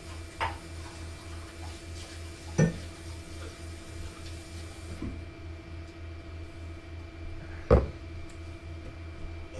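Kitchenware and cupboards being handled: three sharp knocks, the last and loudest near the end, over a steady low hum.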